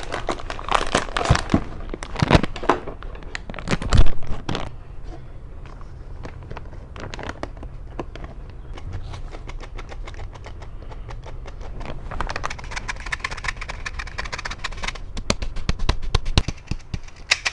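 Cookie flour being added to a mixing bowl: scattered clicks and rattles, a loud knock about four seconds in, and a dense run of fast ticking near the end.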